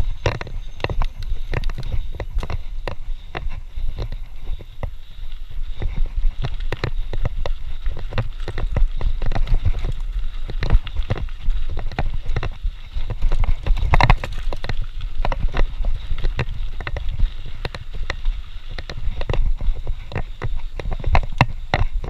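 Mountain bike rolling over a rough dirt trail: a constant low rumble with rapid, irregular rattles and knocks from the bike as it bounces, and one louder jolt past the middle.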